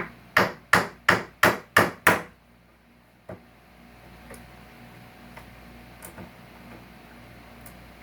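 Hammer striking a fastener in salvaged couch-frame wood: seven quick blows about three a second, then one lighter tap, followed by faint small clicks.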